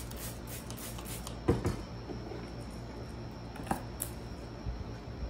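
Orchid stems being handled in a box of paper packing shred: light rustling and handling noise, with a sharp click about a second and a half in and a few smaller clicks later.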